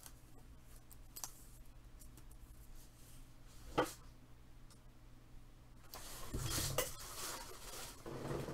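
A trading card and hard plastic card holders being handled: faint light clicks, one sharper click about four seconds in, and a rustling slide of plastic around six to seven seconds in.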